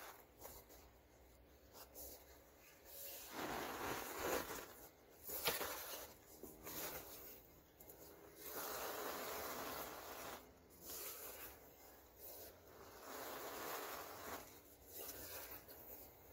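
Hands scooping, squeezing and crumbling fine dry white powder in a plastic tub and letting it fall, in soft scratchy rustles a second or two long that come and go. One sharp tap, the loudest sound, comes about five and a half seconds in.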